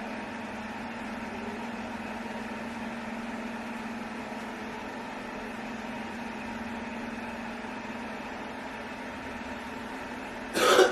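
A steady low hum with a hiss, from a running appliance or ventilation, then a sudden loud cough near the end.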